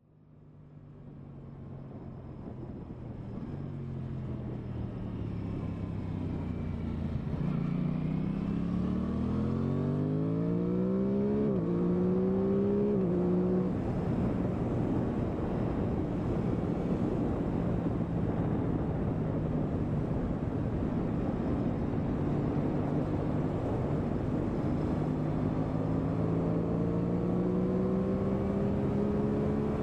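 2023 Aprilia Tuono 660's parallel-twin engine under way, fading in over the first few seconds. The revs fall, then climb to an upshift about eleven seconds in and climb again, before settling under a steady rush of wind that builds with speed, the engine pitch rising slowly again near the end.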